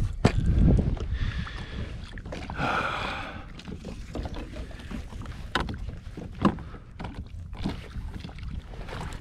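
Landing net and freshly caught redfish being handled on a plastic fishing kayak's deck: scattered knocks and clicks, the sharpest about six and a half seconds in, over wind and water noise on the microphone. A brief pitched sound about three seconds in.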